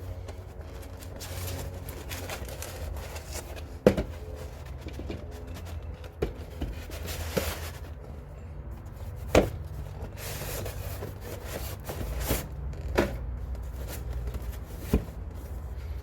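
A cardboard product box and its packaging being handled and opened on a workbench: scraping and rustling, with several sharp knocks, the loudest about four seconds in. A steady low hum runs underneath.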